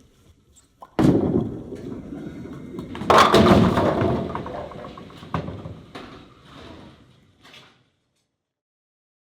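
Bowling ball thrown down a lane: a loud thud as it lands about a second in, a rolling rumble, then the crash of the ball hitting the pins about two seconds later, with pins clattering that dies away over a few seconds.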